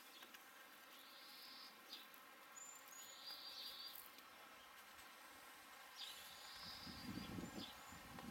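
Near silence outdoors, broken by faint high chirping phrases of about a second each, coming every two to three seconds, with a low rustling noise in the last second or two.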